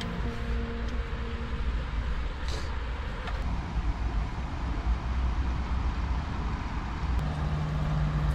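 Steady low outdoor rumble. Background music comes back in near the end.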